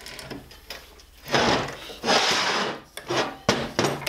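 Heavy electric drive motors being shifted and set down on a workbench. Two rough scraping or rubbing sounds come about a second apart, followed by a quick run of sharp metal knocks as a motor is set in place.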